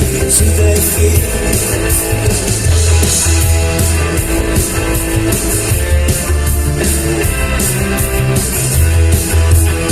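Rock band playing live: electric guitar and bass over a drum kit, with steady cymbal strokes.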